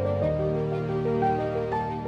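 Background music: a slow melody of held notes over a sustained bass, the bass note changing about a quarter of a second in.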